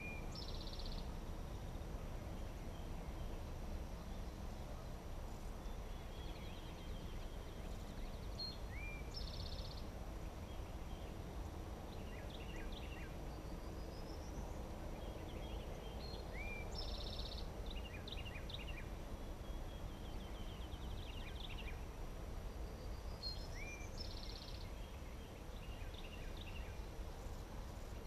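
Wild songbirds singing over a steady low outdoor rumble; one bird repeats the same short, buzzy phrase about every eight seconds, with scattered chirps in between.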